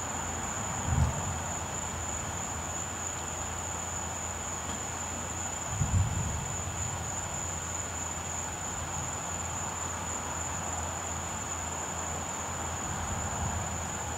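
Night insects, likely crickets, trilling in one steady high-pitched tone over a steady low hum, likely the inflatable pumpkin's blower fan. Two brief low thumps come about a second in and again about six seconds in.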